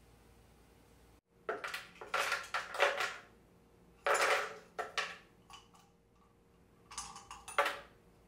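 Ice cubes clattering into a Vitamix blender's plastic jar as they are tipped in from a stainless steel pitcher, in three separate rattling spells.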